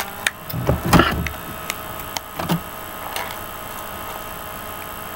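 Light clicks and taps of small plastic toy pieces being handled, with a denser knock and rustle about a second in, over a steady faint electrical hum.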